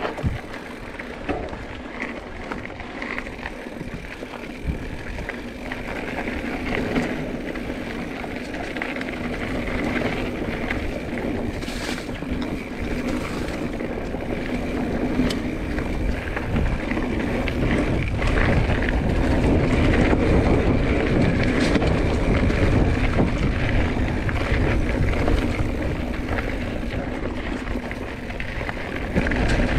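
Wind buffeting the microphone over tyre and frame noise from a mountain bike riding dirt singletrack, growing louder over the second half as speed builds.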